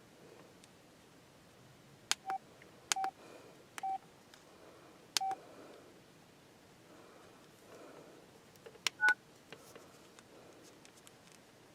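Keypad of a Samsung Convoy 4 flip phone being pressed: sharp button clicks, each with a short single-pitch key beep. Four presses come about a second apart, then after a pause two more with higher beeps about three-quarters of the way in.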